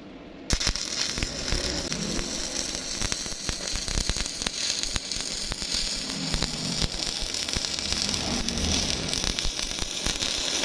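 Electric welding arc crackling and sizzling steadily, with many sharp pops, struck suddenly about half a second in.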